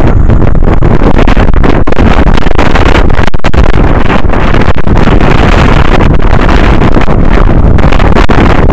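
Strong wind buffeting the microphone: a loud, continuous, low rumble with no pauses, pushing the recording to its limit.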